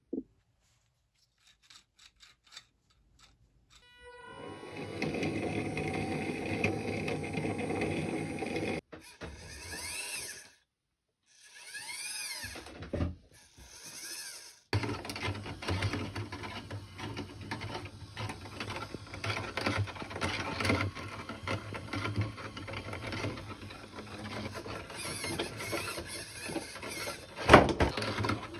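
A small geared electric motor and a hobby servo whirring in stretches as they drive a 3D-printed gear train, belt and tread. The whirr stops and starts several times, with a short wavering whine about twelve seconds in. Two sharp knocks come near the end.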